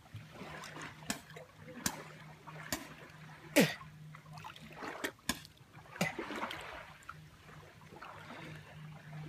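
Shallow lake water splashing and trickling in small, irregular splashes, with a sharper plop about three and a half seconds in. A faint steady low hum runs underneath.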